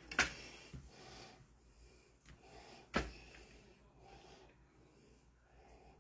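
Two sharp knocks, one just after the start and a louder one about three seconds in, over faint scattered handling noise.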